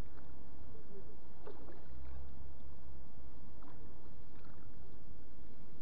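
Water splashing and lapping around a float tube as a hooked fish is reeled in close, with a few short splashes over a low steady rumble.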